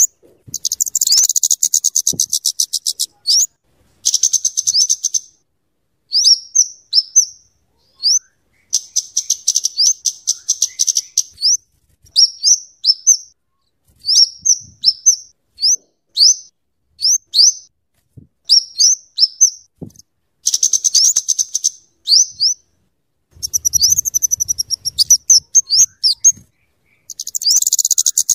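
Flowerpecker (kemade or cabe-cabean) singing: fast, dense ticking trills alternating with short, sharp, high chirps, in bursts of one to two seconds separated by brief pauses.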